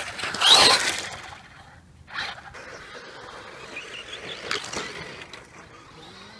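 Electric RC cars driving on a dirt track. A Traxxas Stampede VXL passes close with a short rising whine from its brushless motor and a crunch of gravel and dirt about half a second in. More cars go by after it, with quieter motor whines and tyre noise near two and four and a half seconds in.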